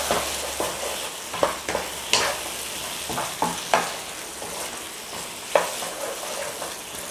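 Wooden spatula stirring a thick chicken curry in a frying pan, the sauce sizzling steadily, with a dozen or so irregular scrapes and knocks of the spatula against the pan.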